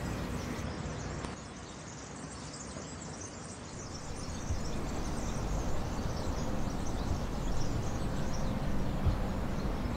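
Outdoor ambient noise: a steady hiss with no distinct events, dropping a little about a second in and growing louder again from about four seconds in.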